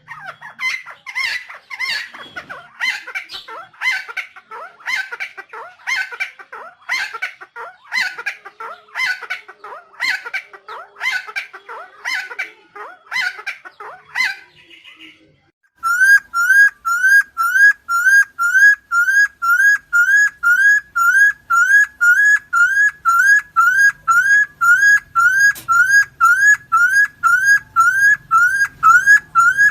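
Helmeted friarbird calling: harsh calls repeated about one and a half times a second, then, after a short break, a very regular run of rising whistled notes at about two a second.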